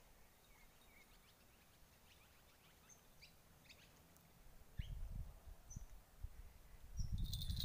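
Faint, scattered bird chirps over quiet lakeshore ambience. A low rumbling comes in about five seconds in, and a louder burst of rustling and rumbling near the end.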